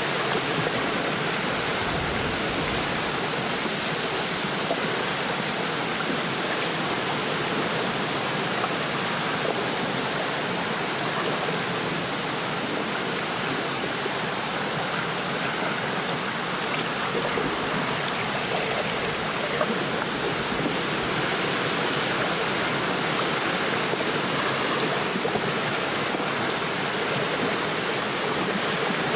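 Wind rustling through a lakeside reed bed with small waves lapping, a steady even rush.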